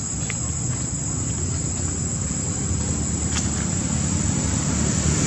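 A motor vehicle's low engine rumble, growing louder toward the end, over a steady high-pitched insect drone.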